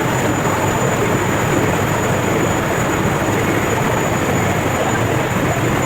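Steady loud machinery noise of an industrial boiler plant, with a thin, high, steady whine over it.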